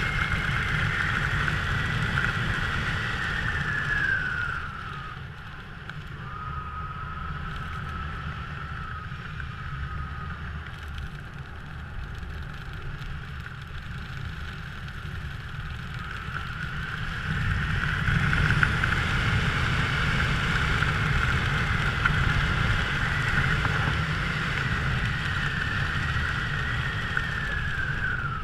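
A motor's high whine that drops in pitch and fades about four seconds in, stays lower and quieter for a while, then rises and grows louder again from about the middle and drops once more near the end, with wind rumbling on the microphone.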